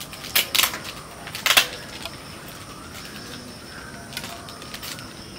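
Rustling and handling noises as a child pulls a wrapped gift out of a school backpack: a few short rustles about half a second in and again about a second and a half in. Faint bird calls sound behind.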